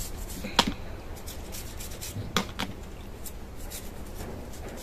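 Objects being handled by hand: a few sharp clicks and knocks, the loudest about half a second in and two more about two and a half seconds in, with faint rubbing and taps between.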